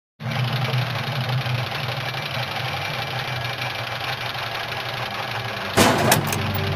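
Intro sound effect of running machinery: a steady mechanical whirring drone with a low hum. About six seconds in comes a sudden loud crash, with a couple of shorter hits just after it.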